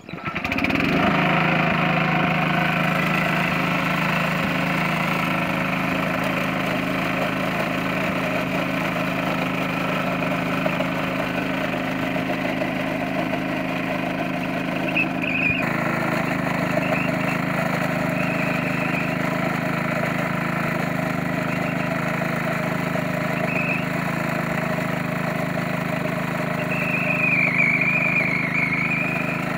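Small single-cylinder petrol engine of a rail cutting saw starting and then running steadily. A wavering higher whine comes in near the end.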